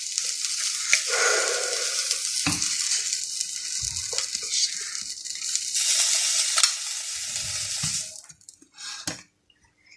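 Frankfurter sausages sizzling in a frying pan just after the heat has been turned off. The metal tongs lifting them onto a plate give a few clicks and knocks. The sizzling cuts off suddenly about eight seconds in.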